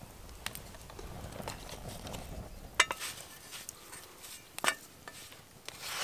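Wooden spatula knocking and scraping on a flat iron griddle pan as flatbread dough is lifted and pressed, a few sharp clicks, the loudest about three seconds in.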